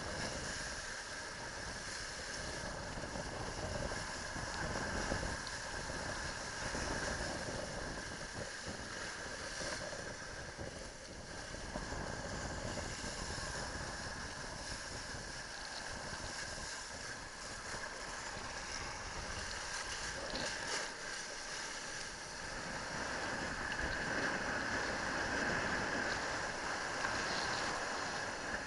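Wind buffeting a helmet camera's microphone, mixed with the rush of water as a kiteboard skims fast across the surf: a steady, noisy rushing.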